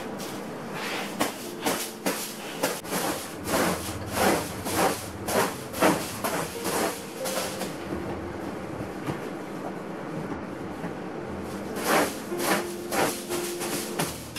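Household items being handled and set down: an irregular run of clicks, knocks and light rubbing, dropping off for a few seconds near the middle, over soft background music.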